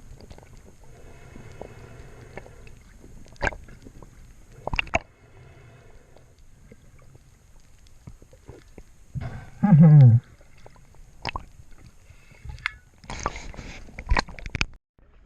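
Water sloshing and gurgling, with scattered sharp knocks and, about ten seconds in, a short loud sound falling in pitch.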